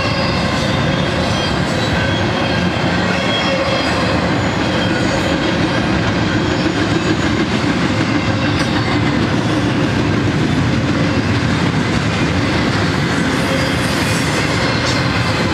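Double-stack container well cars of a freight train passing close by: a steady, loud noise of steel wheels running on the rails, with faint high-pitched wheel squeal.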